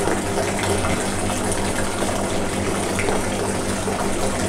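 Cooled wheat-beer wort pouring steadily in a thin stream from a brew kettle's drain tap and splashing into a plastic fermenting bucket. It is poured without a hose so that the falling wort is aerated.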